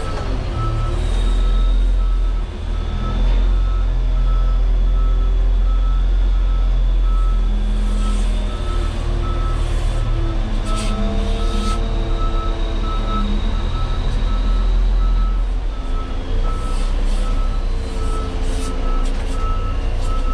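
Off-highway dump truck's reversing alarm beeping steadily, about two beeps a second, over the low, steady drone of the truck's diesel engine.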